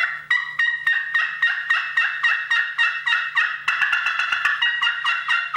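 Slate friction turkey call with a walnut pot, run hard with a striker: a loud, fast string of hen yelps at about five notes a second, each note breaking over from a high pitch to a lower one.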